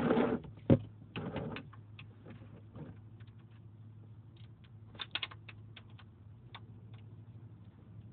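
Metal clicks and knocks of a ratchet and 11/16 socket working on a car's oil pan drain bolt, in scattered groups: a sharp click just under a second in, a cluster soon after, and another cluster about five seconds in.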